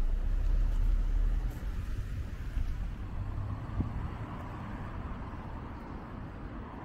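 Urban outdoor ambience: a low rumble, loudest in the first second and a half, then a steady hiss of distant traffic.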